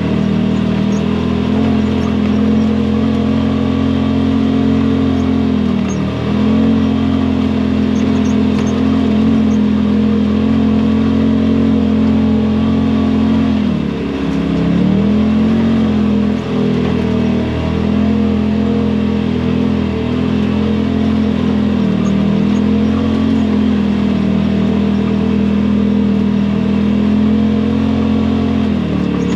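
Side-by-side UTV engine running at a steady throttle on a trail, its pitch dropping and climbing back three times as the throttle is eased off and reapplied: about six seconds in, around the middle, and near the end.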